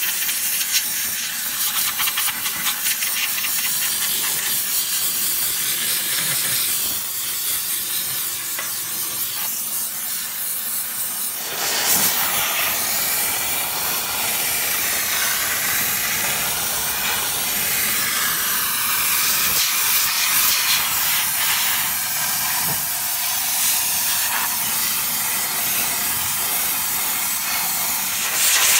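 Chief Steamer 125 steam cleaner wand jetting steam into a car's inner fender well: a steady, high-pitched hiss that turns louder and fuller about twelve seconds in.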